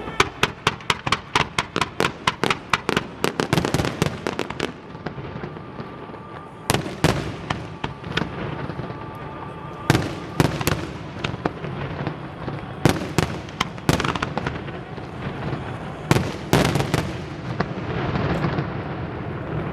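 Aerial fireworks going off: a rapid volley of sharp bangs, about three or four a second, for the first five seconds, then single louder bangs every second or two over steady crackling.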